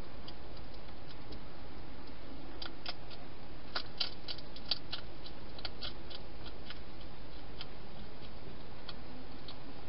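Wild European hedgehog eating from a bowl: a run of irregular, sharp chewing clicks, thickest in the middle, over the steady hiss of a night camera's microphone.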